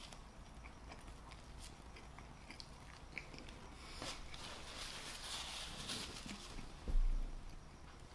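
A person chewing a mouthful of cheesy pizza fries close to the microphone, with small wet mouth clicks and smacking. A dull low thump comes about seven seconds in.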